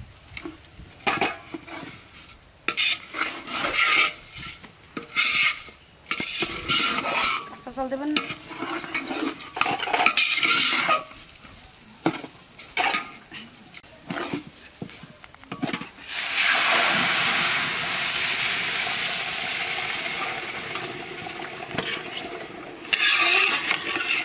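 Food stirred in a cooking pot, a quick series of scraping strokes. About two-thirds through, loud sizzling starts suddenly and slowly dies down, and the stirring strokes return near the end.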